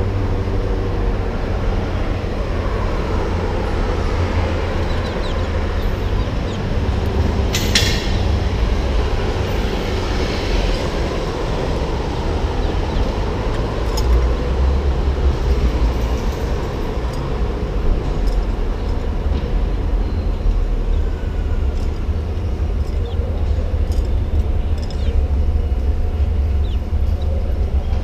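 Steady low rumble of city street traffic. A short hiss comes about seven and a half seconds in.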